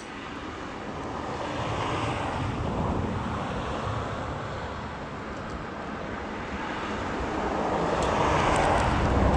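Traffic on a road passing above the shoreline: a steady rushing hiss that swells as one vehicle goes by early on and again, louder, near the end as another passes.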